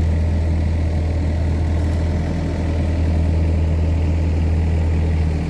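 Excavator diesel engine running steadily with a deep, even hum and no change in revs.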